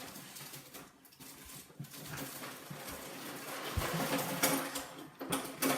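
Rustling and crinkling of plastic LEGO parts bags being handled, with small plastic pieces clicking inside.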